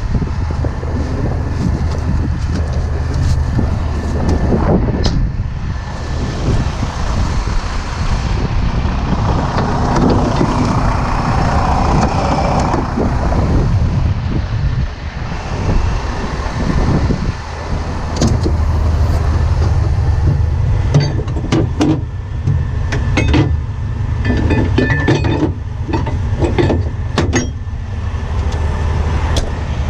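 Heavy truck engine idling steadily. In the second half there is a run of sharp metal clanks and rattles as rigging chains and hooks are handled in a tow truck's steel side compartment.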